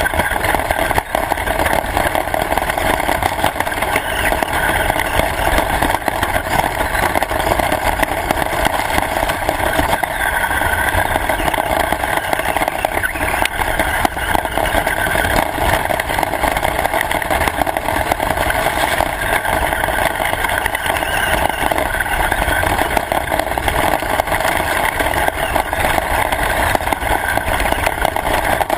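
Radio-controlled car running continuously, its motor and drivetrain giving a steady noise with a low rumble underneath.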